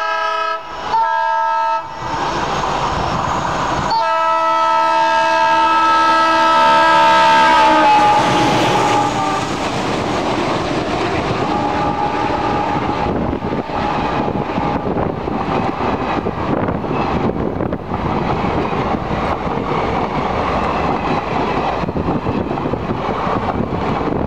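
Horn of an ALCO WDM2 diesel locomotive: two short blasts, then a long blast that drops in pitch at its end. After it, the train rolls by with a steady rumble and wheels clattering over the rail joints.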